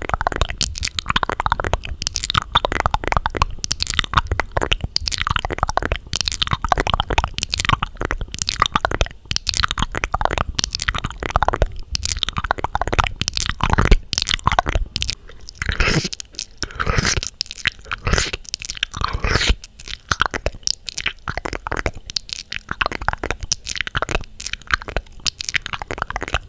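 Close-miked ASMR crunching and crackling: a dense, continuous run of crisp clicks and crinkles with occasional squeaky glides.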